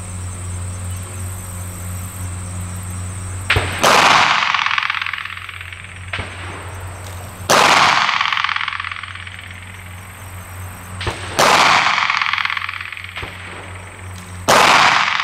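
Glock 19 9mm pistol being fired slowly. Four sharp shots come about three to four seconds apart, each with a long echoing tail, and fainter pops fall between them.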